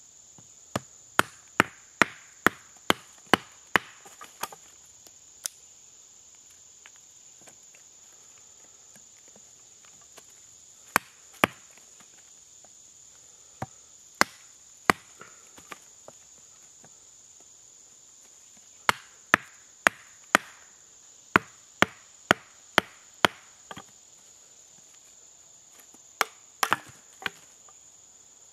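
Wooden baton striking the spine of a thin carbon-steel bushcraft knife to drive it through pignut hickory: sharp knocks in runs of several, about two a second, with pauses between runs.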